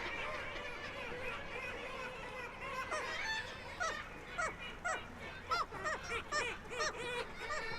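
A flock of seagulls calling, many short overlapping cries that grow busier from about a third of the way in.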